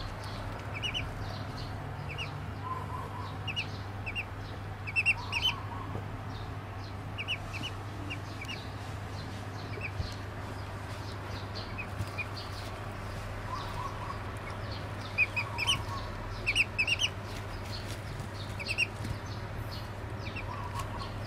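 Duckling peeping: short high peeps in scattered clusters of two to four, loudest around five seconds in and again from about fifteen to seventeen seconds, over a steady low hum.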